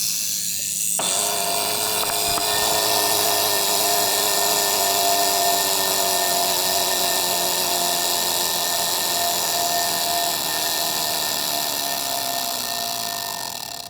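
Alarm of a circa-1950s sub-miniature skeleton alarm clock ringing without a break, long and loud, weakening slightly near the end before it stops.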